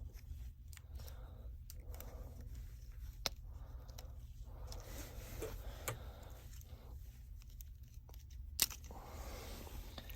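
Small repair tools clicking and scraping on a Samsung Galaxy S8 Plus while its charging-port board is worked loose, with a few sharp clicks, the loudest near the end.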